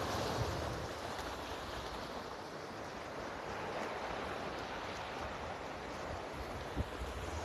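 Small sea waves washing and foaming over flat shoreline rocks, a steady hiss of surf. A single brief knock near the end.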